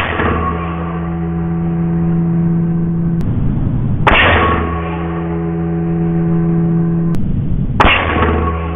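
Three shots from a moderated PCP air rifle firing .22 slugs: one at the start, one about four seconds in and one near the end, each a sharp crack with a short ringing tail. A steady low hum sits underneath.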